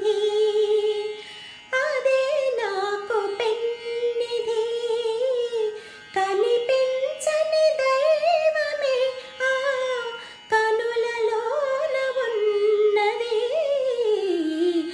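A woman singing a slow Telugu film melody, long held notes that slide up and down, with short breaks for breath about every four seconds.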